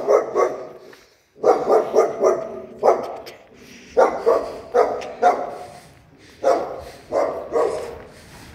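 A dog barking in quick runs of four or five barks, with short pauses between the runs.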